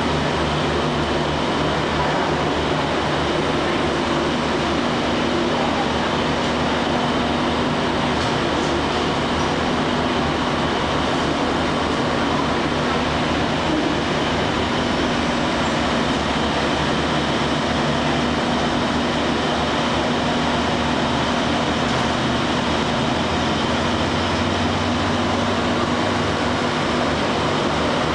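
Diesel railcar's engine idling steadily while the train stands in the station: an even low hum made of several steady tones.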